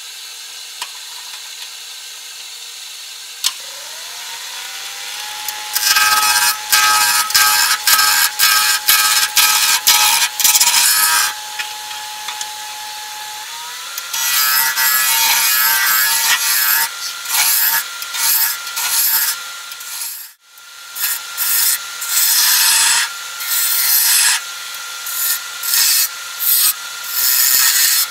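Wood lathe starting up, its motor whine rising in pitch a few seconds in and then holding steady, while a turning gouge cuts a spinning cherry wood blank in repeated short bursts of shaving noise. The whine steps up in pitch about halfway through.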